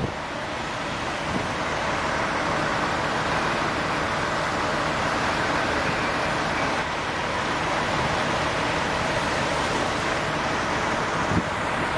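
Steady rushing noise of firefighting at work: fire hoses spraying water onto a burned house, with the low rumble of fire apparatus engines running beneath. A single brief knock sounds near the end.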